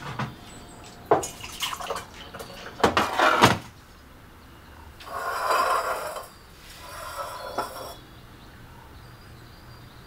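Kitchen dishes and cups knocking and clinking on a counter, several sharp knocks in the first few seconds, then liquid pouring for about a second, and again more briefly.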